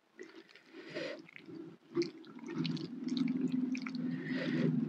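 Fingers squeezing and mixing rice and vegetables into wet chili sambal in a stone mortar: soft wet squishing with small clicks. It grows louder and denser from about halfway in.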